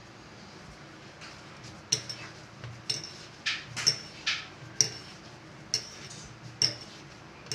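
Pizza dough being kneaded by hand against a hard surface: irregular soft slaps and knocks, about eight of them, as the dough is pressed and turned.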